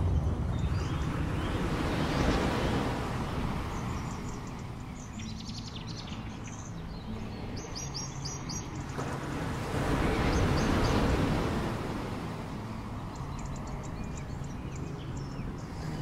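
Small waves washing onto a beach, swelling and falling back twice, with birds chirping faintly in the middle and again near the end.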